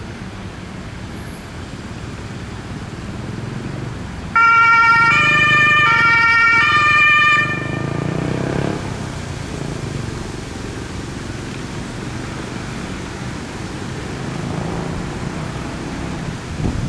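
Fire station alarm gong sounding a loud chime of about four notes stepping in pitch over roughly three seconds, signalling a callout to the crews. A steady low rumble runs underneath.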